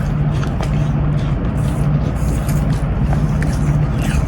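Dog chewing apple, with short irregular crisp crunches over a steady low hum.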